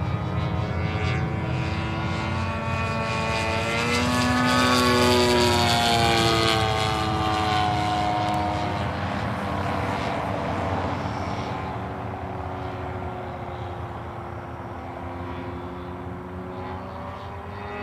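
Radio-controlled scale model Zero warplane flying past, its engine and propeller droning. The pitch rises as it approaches, is loudest about five seconds in, falls as it passes, and then fades as it flies away.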